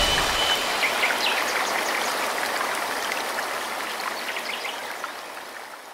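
Waterfall and river water rushing, with a few short high chirps over it, fading out steadily toward the end.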